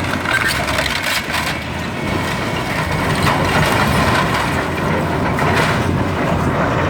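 A wooden building being torn down: timber crushing, cracking and splintering in a dense run of breaks, over the low rumble of demolition machinery.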